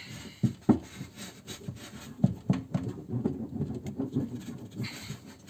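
A hand roller rolled firmly over butyl rubber sound deadening sheets stuck to the inside of a steel door panel, giving continuous rubbing and scraping with irregular knocks against the door.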